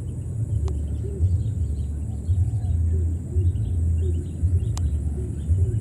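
An uneven low rumble that swells and fades, with soft short rising-and-falling calls and faint high chirps over it.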